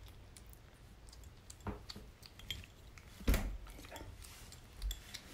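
A kitten eating soft weaning food from a small ceramic bowl, with a spoon and the bowl clinking and knocking now and then; the loudest knock comes a little past halfway.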